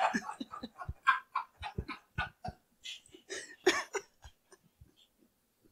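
Two men laughing hard and trying to stifle it: short, breathy, wheezing bursts of laughter that thin out and die away near the end.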